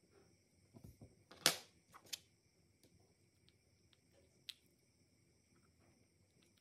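A few small sharp clicks and snaps from a G-Shock DW-6600 watch being reassembled by hand, as the module and case parts are pressed into place. The loudest click comes about a second and a half in, another follows shortly after, and a single sharp click sounds a little past the middle.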